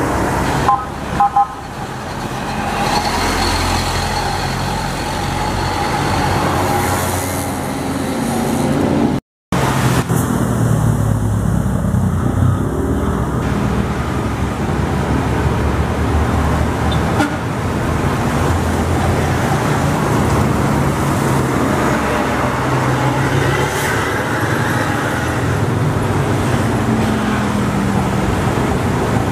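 Road traffic passing: diesel buses, trucks and cars driving by, with steady engine and tyre noise. A couple of short horn toots sound about a second in, and the sound drops out briefly at an edit about nine seconds in.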